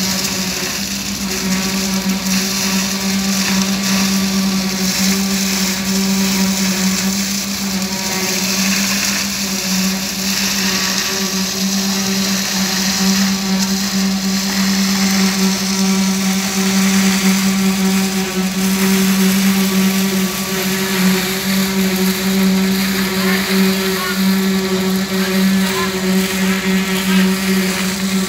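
Heavy diesel machinery at a concrete pour, a truck-mounted concrete pump and a mixer truck, running steadily under load: one constant engine drone with a high hiss over it.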